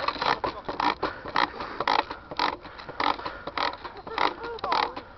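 Airsoft guns firing in an ongoing exchange: a steady run of short, sharp pops, irregular at about three to four a second. A faint distant shout near the end.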